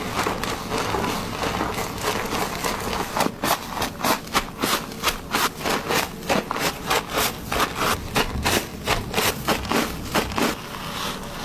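Gloved hands massaging shampoo lather into wet hair and scalp. It begins as a continuous rubbing; from about three seconds in it turns into a quick, even rhythm of rubbing strokes, roughly three a second, which eases off near the end.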